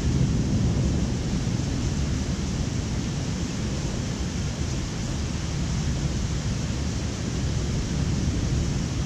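Thunderstorm: a low, steady rumble of distant rolling thunder over an even hiss of rain. The rumble is a little stronger at the start and swells again near the end.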